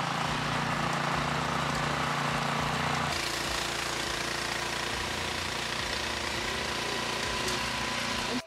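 Gas snowblower engine running steadily under load while its auger throws snow out of the chute; the engine's tone shifts about three seconds in.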